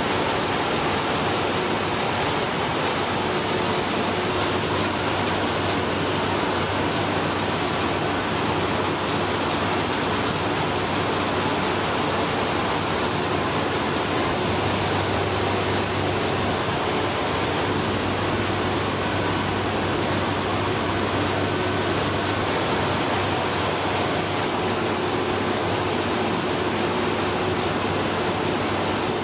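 Heidelberg Speedmaster sheet-fed offset printing press running: a steady, even machine noise with a faint low hum.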